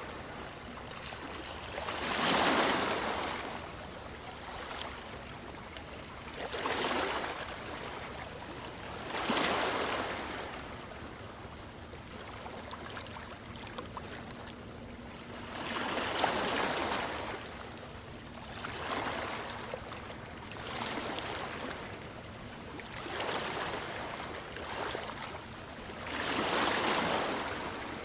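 Ocean waves breaking on a beach: surges of surf every two to five seconds, each swelling and then washing back.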